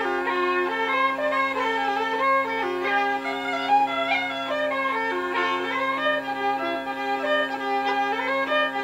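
Uilleann pipes playing a tune: a steady drone held under a moving chanter melody.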